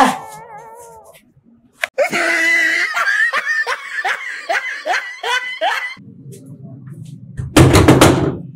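A young man's rapid, high-pitched laughter, about three 'ha's a second for roughly four seconds. Near the end, a low hum and a short, loud noisy burst.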